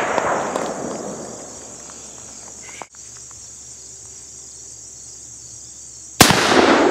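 Two revolver shots from a replica Remington cartridge-conversion revolver firing black-powder .44-40 cartridges: one right at the start, and a louder one about six seconds in. Each is a sharp bang followed by an echo that dies away over a second or two.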